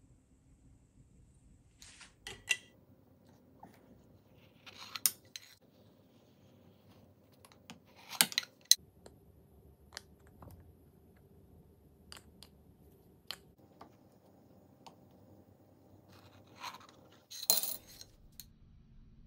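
Scattered clinks and knocks of an aluminium puttu maker's tube and pushing stick against a ceramic plate as steamed puttu is pushed out, about ten sharp hits with the loudest cluster near the end.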